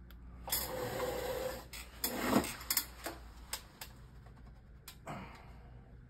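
Handling noise as a filled silicone resin mold is picked up and moved off the work mat: a rubbing, scraping sound, a louder sweep about two seconds in, then several light clicks and knocks.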